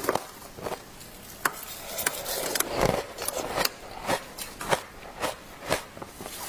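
Frozen matcha ice crunching and cracking as chunks are broken off by hand and bitten: sharp, irregular cracks, roughly two a second.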